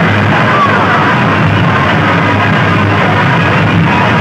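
Very loud music with heavy bass blasting from a towering wall of horn loudspeakers on a DJ sound-competition rig, steady with no breaks.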